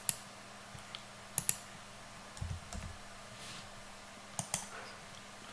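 A few sharp, scattered clicks of computer keys and a mouse, including two quick pairs of clicks.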